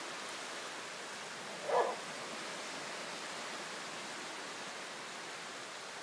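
A dog barks once, briefly, a little under two seconds in, over a steady hiss.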